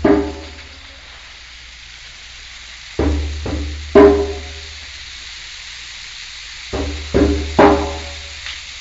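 Music: short pitched notes over a deep bass, in phrases of two to four notes separated by pauses of a second or two.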